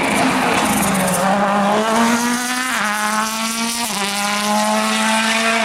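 Ford Fiesta WRC rally car's turbocharged four-cylinder engine pulling hard at high revs. The pitch climbs, drops sharply at upshifts about three and four seconds in, then climbs again.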